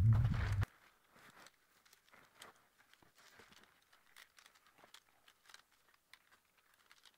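Faint rustling of tent fabric and small clicks of the tent's poles and lines being handled, with scattered crunches. A low rumble cuts off suddenly about half a second in.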